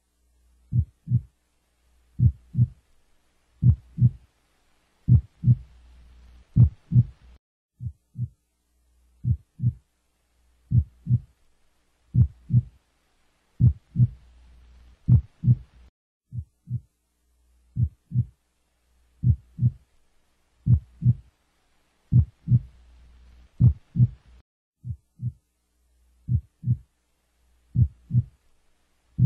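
Heartbeat sound effect: slow, steady double thumps (lub-dub) about every one and a half seconds. A faint low rushing sound swells and fades three times between them.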